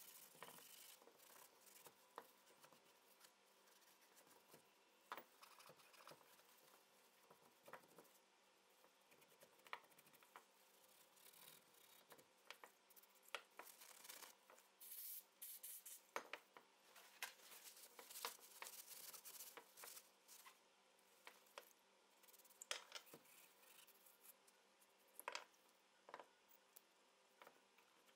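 Faint scrubbing of soft steel wool on small rusty steel shotgun parts, taking off the last of the rust. Short bursts of rubbing come thickest in the middle, mixed with scattered light clicks of metal parts and the crinkle of a paper towel.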